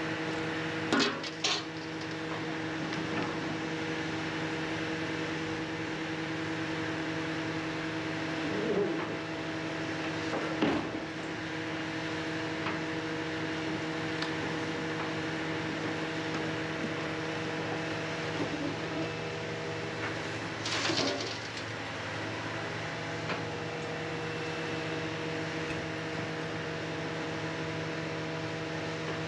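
Scrap-yard material handler working with a lifting magnet over a steady engine hum. A few sharp metal clanks are heard, and about two-thirds of the way in there is a short screech of metal.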